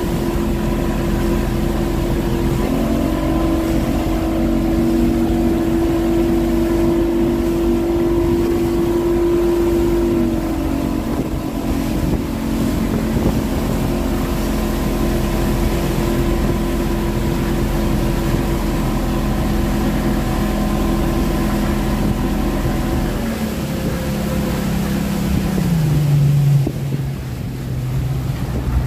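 A small motorboat's engine runs steadily at cruising speed, with rushing water and wind noise over it. Near the end the engine note drops in two steps as the throttle comes back and the boat slows.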